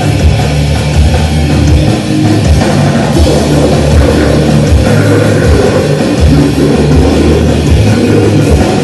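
Loud heavy metal music: a drum kit pounding under guitars, dense and continuous.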